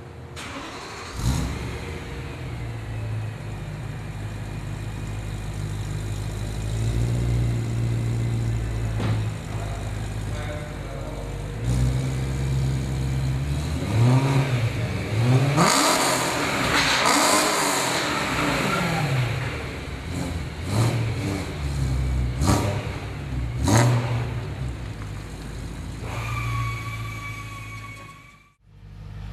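BMW E92 M3's V8 cold-starting about a second in with a sharp bark, then settling into a steady high idle through a Fabspeed high-flow cat, X-pipe and Maxflo exhaust. It is revved several times in the second half, the longest rise and fall in the middle.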